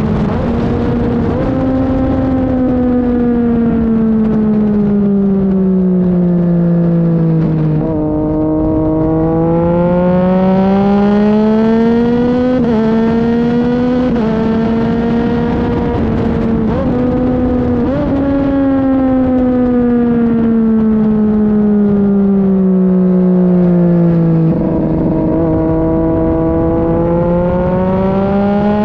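Sport motorcycle engine heard from onboard at racing speed. Its pitch sinks slowly for several seconds, then climbs again, with a few small sudden jumps in pitch.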